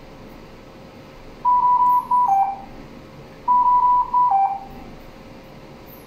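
Dräger Infinity C500 ventilator alarm sounding twice, about two seconds apart. Each time it gives a quick run of high beeps that steps down to a lower tone. It signals the active low minute-volume ('VM bajo') alarm.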